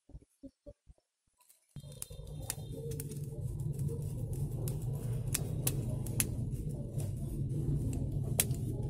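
Hands working electrical wires into the terminals of a plastic wall socket: scattered sharp clicks and small taps over a steady low background rumble. The rumble starts about two seconds in, after a nearly silent start with a few faint ticks.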